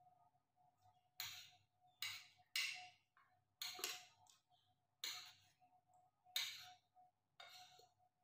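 Metal spoon and fork clinking and scraping against a ceramic plate while eating, about eight short sharp clinks at irregular intervals. A faint steady hum underneath.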